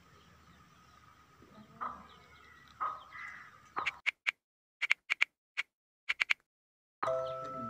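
Baby rabbits nibbling a cucumber, with two crunchy bites and faint bird chirps in the background. Then a quick run of about a dozen sharp typewriter-style key clicks with silence between them, and music starting near the end.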